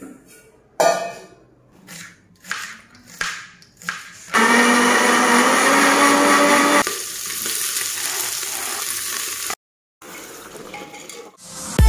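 Clinks and knocks of steel utensils being handled, then an electric mixer grinder with a steel jar running loud and steady for about two and a half seconds. After it comes quieter steady kitchen noise, then faint scraping of a ladle stirring in a pressure cooker.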